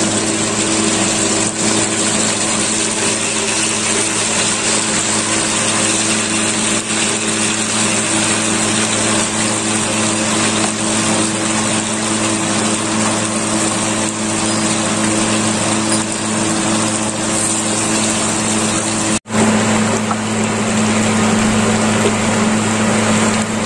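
Pork hocks deep-frying in a large pan of hot oil, sizzling and bubbling steadily over a constant low hum. The sound breaks off for a moment about 19 seconds in.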